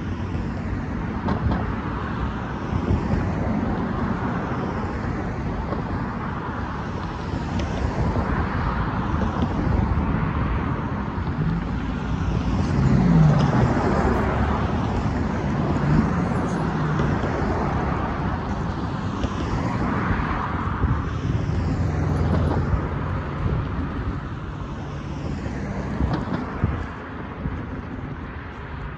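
Road traffic: cars and pickup trucks driving past one after another, each swelling and fading as it goes by. The loudest pass is about halfway through, with an engine hum.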